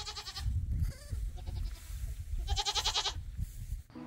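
Goat bleating twice: a short, quavering, high bleat at the start and a longer one about two and a half seconds in.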